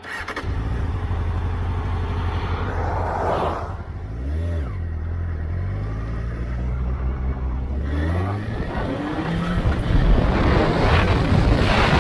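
Motorcycle engine catching and running steadily. It dips and picks up once about four seconds in, then revs up, and a louder rushing noise builds over the engine near the end.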